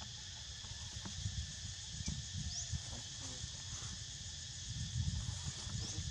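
Steady high-pitched drone of forest insects in several constant bands, over an uneven low rumble.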